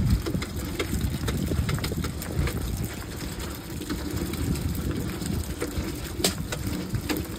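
Hand-cranked grape crusher being turned, crushing grapes with a steady churning rumble and scattered mechanical clicks, one sharper click about six seconds in.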